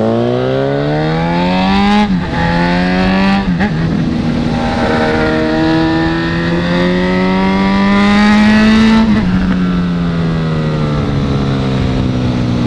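Honda CB1000's inline-four engine accelerating hard through the gears: the pitch rises, drops at two quick upshifts about two and three and a half seconds in, then climbs slowly through a long pull before the throttle is closed about nine seconds in and the engine settles to a lower, steady note.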